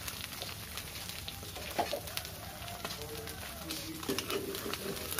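An egg frying in hot oil in a small pan: a steady sizzle with fine crackling pops.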